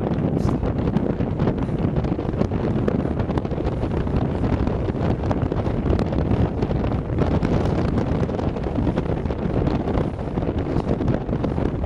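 Very strong mountain wind buffeting the microphone: a heavy, gusting rumble that never lets up.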